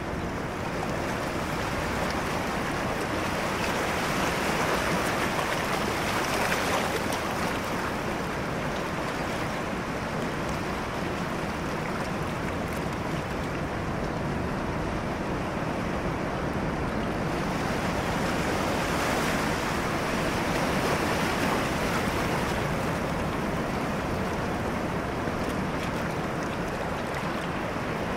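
Sea surf washing into rocky shallows, a steady rush of water that swells twice.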